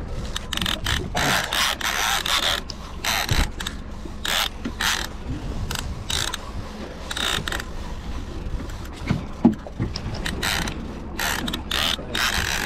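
A fishing reel being cranked under load to bring in a hooked albacore tuna, its gears clicking and ratcheting in short, uneven spells.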